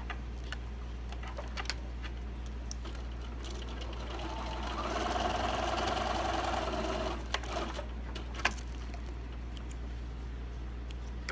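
Computerised electric sewing machine running and stitching a short seam for about three seconds, starting about four seconds in, followed by a few sharp clicks.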